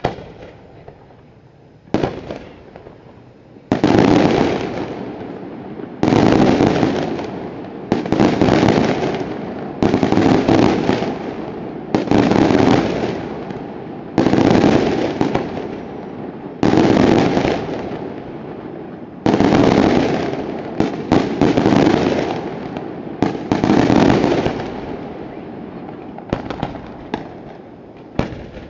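Daytime fireworks shells fired from a barge, bursting in loud bangs about every two seconds, each trailing off in a long rumble. A flurry of quicker bangs comes about two-thirds of the way through, then smaller cracks near the end.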